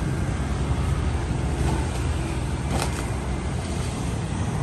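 Street traffic with motorbike engines passing, a steady low rumble, with a brief crackle about three seconds in.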